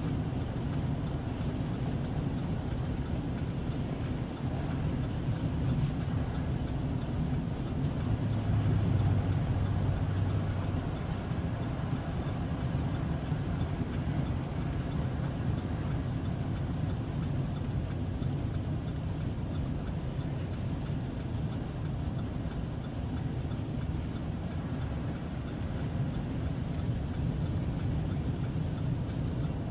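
Steady low engine and road rumble heard inside a vehicle's cab while driving on the highway, a little louder for a couple of seconds about eight seconds in.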